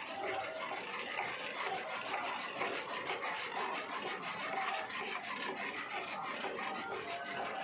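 Motor-driven chaff cutter running and chopping green fodder fed into it by hand: a steady mechanical noise with a fast, even rhythm.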